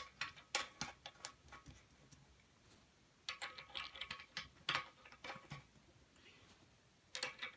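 French horn rotor valve caps being fitted and screwed on by hand: light metallic clicks and ticks of metal on metal, in three bursts, with a faint ringing from the brass.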